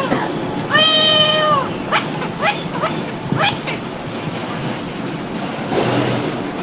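A man imitating a sad cat's meowing with his voice: one long drawn-out meow about a second in, then a few short quick meows.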